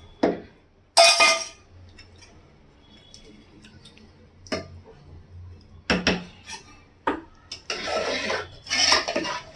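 Aluminium cookware clattering: a loud metal clank about a second in. Then quieter knocks and scraping as a wooden dal masher and a steel spoon work thick mashed dal in an aluminium pot, with the scraping busier near the end.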